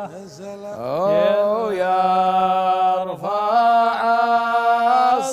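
Unaccompanied male voices singing a Saudi sheelah chant in an old Unaizah melody, each syllable drawn out into long held notes over a steady low held note. The singers break briefly about three seconds in and slide into the next word, 'ويرفع'.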